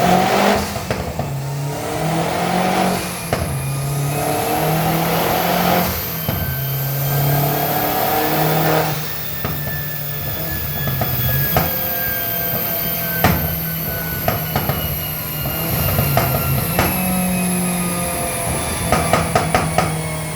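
Audi TT 225's turbocharged four-cylinder engine revved up and down again and again, with sharp exhaust pops and crackles on the overrun and a quick run of cracks near the end. The crackles were tuned in at the owner's request.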